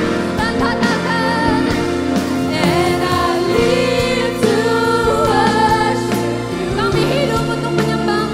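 Live contemporary Christian worship song: several women's voices singing together into microphones over a band with bass and drums.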